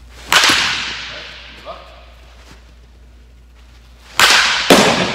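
Baseball bat hitting front-tossed baseballs, each a sharp crack with a long echo in a large indoor batting cage: one hit about a third of a second in, then near the end another hit followed half a second later by a second sharp impact.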